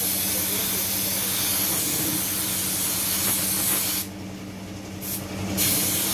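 Paint spray gun spraying with a steady hiss. The spray stops about four seconds in, gives a short burst, then resumes a second and a half later. A steady low hum runs underneath throughout.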